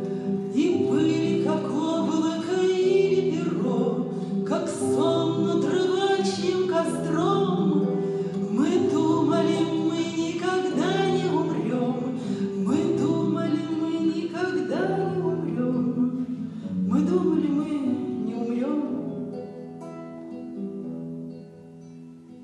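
A woman singing a slow song into a microphone while she accompanies herself on a nylon-string classical guitar. It grows quieter near the end.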